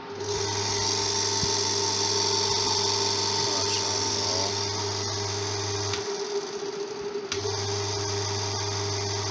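Room air cooler's electric fan motor switched on for a test run after reassembly of its bush, running with a steady low mains hum and a higher whir. About six seconds in the hum drops out briefly, then starts again just after a click.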